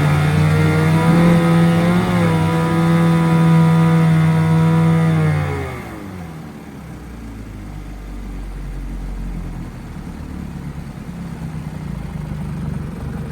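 1974 Johnson 15 hp two-cylinder two-stroke outboard running steadily in a test tank, with a brief blip in speed about two seconds in. About five and a half seconds in it shuts off and its pitch falls away as it stops, leaving a quieter steady background noise.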